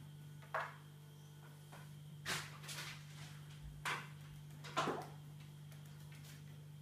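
Kitten at play with a feather teaser wand on a windowsill: five short scuffs and swishes, one about half a second in and four close together in the middle, over a steady low hum.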